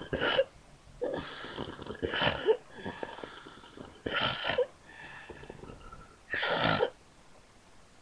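A sleeping woman snoring: noisy breaths come in a slow rhythm, about one every two seconds, four in all.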